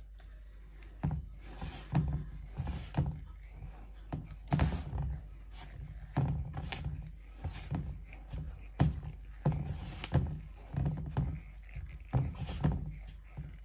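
A raw chicken wing being tossed and pressed into seasoned flour in a wooden bowl by a gloved hand: soft thuds and rustles, irregular, roughly one a second.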